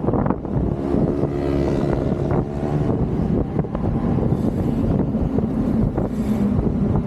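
Wind rushing over an action camera's microphone while cycling at about 40 km/h. A steady pitched hum rises out of it for about two seconds near the start.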